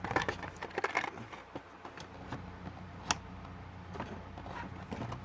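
Hot Wheels blister pack being handled and opened: a flurry of crinkling plastic and cardboard clicks in the first second or so, a single sharp click about three seconds in, and a few lighter ticks near the end.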